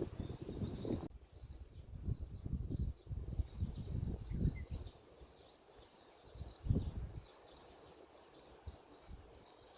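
Small birds chirping, many short high chirps repeated throughout, with irregular low rumbles and thumps on the microphone that are strongest in the first half and ease off after about five seconds.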